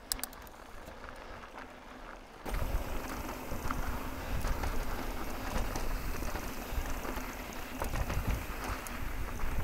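Mountain bike riding over a dirt and rock trail: tyre rumble and rattling knocks, with wind buffeting the microphone. It gets suddenly much louder about two and a half seconds in.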